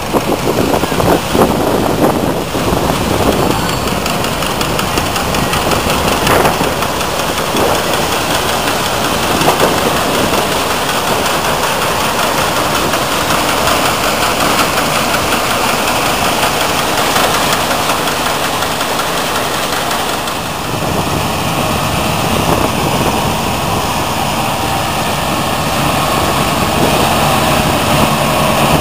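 Engines and threshing machinery of vintage combine harvesters running steadily, with a Ford tractor's engine alongside, while grain is augered from a red combine into a tractor trailer. About two-thirds of the way through the sound changes to a New Holland Clayson combine harvesting standing grain, with a steadier engine tone.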